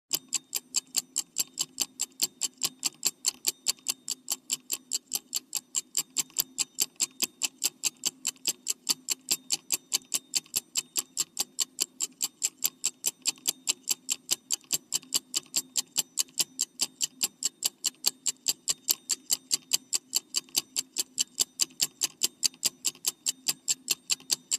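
Clock-style ticking sound effect of a countdown timer: an even tick about four times a second, over a faint low hum.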